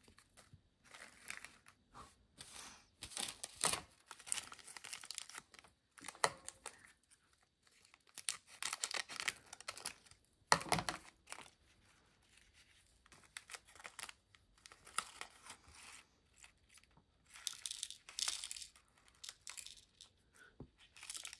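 Small plastic packets of diamond-painting drills crinkling and being torn open in irregular bursts, with one sharp knock about ten and a half seconds in.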